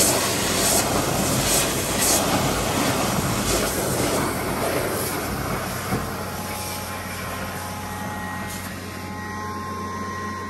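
TRUVAC TRXX vacuum excavator running: a steady roar of its vacuum blower and engine, with air and loosened wet soil rushing up the suction tube and a few sharp crackles of debris. About six seconds in the sound gets a little lower and a faint steady whine comes through.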